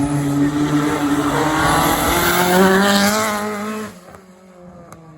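Rally car's engine revving hard under acceleration, its pitch climbing steadily. About four seconds in, the sound drops away sharply and only a much quieter background remains.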